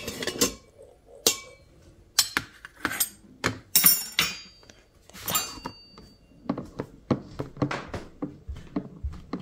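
A stainless steel ladle clinks against the stainless inner pot of an Instant Pot as steamed eggs are scooped out. Eggs knock down onto a plastic tray. The result is a string of sharp clinks and knocks, and a few of them ring briefly.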